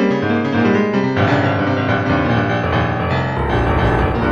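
Instrumental background music: a run of quick pitched notes that fills out into held chords, with a deep bass note coming in about three seconds in.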